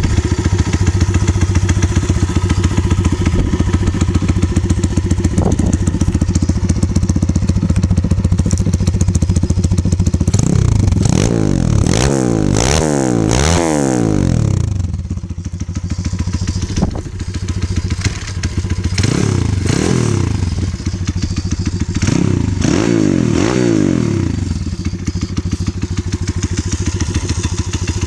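Pit bike's 140cc YX single-cylinder four-stroke engine idling steadily, then revved in a run of quick throttle blips about ten seconds in, a few more blips later on, and settling back to idle near the end.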